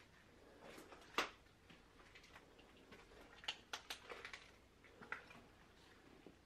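Footsteps on a debris-strewn tile floor: scattered faint crunches and clicks, with one sharp one about a second in and a quick run of them around three and a half to four and a half seconds in.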